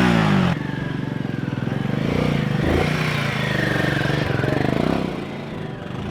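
Music cutting off about half a second in, then a motorcycle engine running, its pitch rising and falling as it is revved, dropping quieter near the end.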